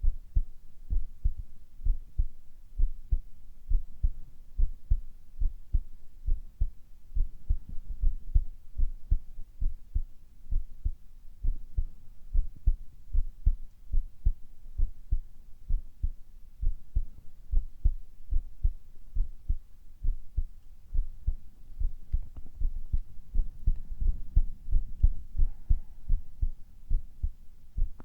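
Human heartbeat picked up close on a microphone: a steady, even run of low, muffled thumps.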